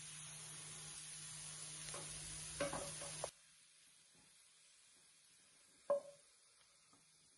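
Diced courgettes sizzling in a frying pan, with a few light knocks of a utensil against the pan. The sizzle stops suddenly about three seconds in. Near the middle comes one sharp clink with a short ring as the cooked courgettes are scraped with a wooden spatula from the pan into a glass bowl.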